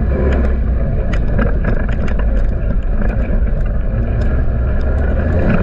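Polaris 800 ATV engine running at a steady riding speed, with many sharp clicks and rattles over the drone.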